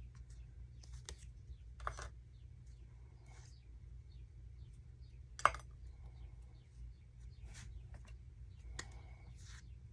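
Pokémon trading cards handled by hand as they are leafed through: scattered light clicks and taps, with one sharper click about five and a half seconds in.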